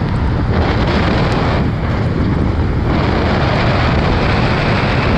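Wind rushing over a motorcycle rider's camera microphone at road speed, with the motorcycle's engine running underneath, steady throughout.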